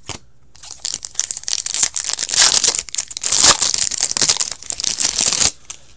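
A foil trading-card pack wrapper crinkling and tearing as hands open it. The crackle starts about half a second in and grows loudest in the middle, then stops shortly before the end.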